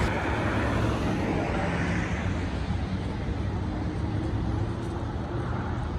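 City road traffic: cars passing on a multi-lane street, a steady rush of engine and tyre noise.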